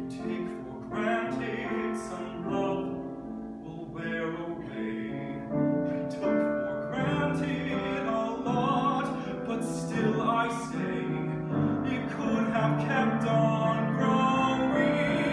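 A man singing with grand piano accompaniment, in a trained, operatic-sounding voice, growing louder toward the end.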